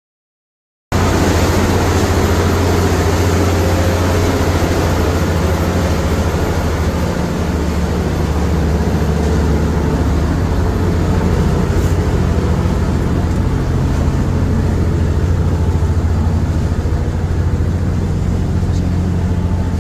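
Motorboat engine running steadily at speed, a loud low drone with rushing noise over it; it cuts in abruptly about a second in.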